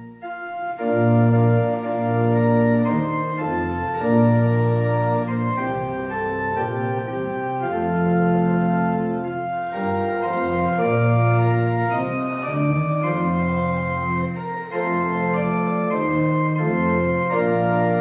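Church organ played solo: sustained chords that change every second or so, after a brief break right at the start.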